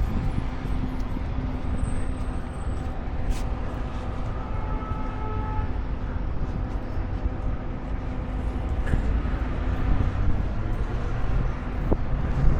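A motor vehicle running, a steady low rumble with a faint hum over it.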